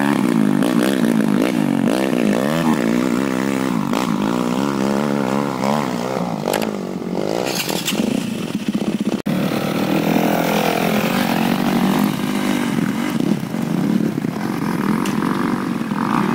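Trail bike engine, a Viar 250 SF bored up to 300 cc with twin mufflers, revving up and down repeatedly as it rides off over a dirt track. After a brief break about nine seconds in, dirt-bike engines rev more faintly and evenly.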